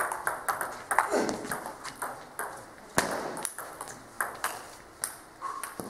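Table tennis rally: the ball clicks sharply off the paddles and the table in quick, irregular succession, each click echoing briefly in a sports hall.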